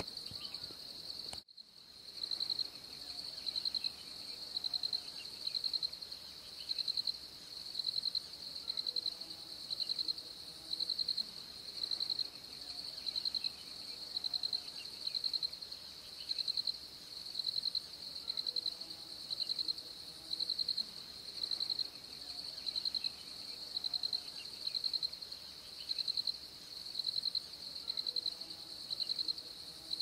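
Cricket chirping steadily in a high, even pitch, each chirp a quick trill of pulses repeated about once a second, with a brief break about a second and a half in.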